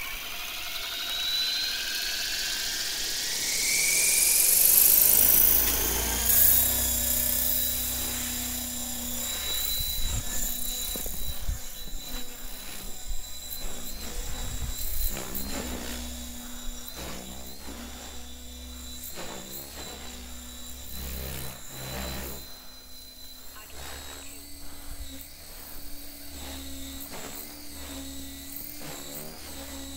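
Oxy 4 Max electric RC helicopter spooling up, its motor and rotor whine rising in pitch over the first few seconds. It then runs steadily in flight, a high whine over a lower rotor buzz, its pitch shifting slightly now and then as it manoeuvres.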